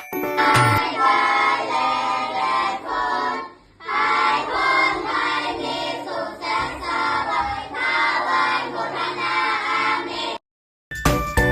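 A group of children singing together, with a short pause partway through; the singing cuts off abruptly near the end.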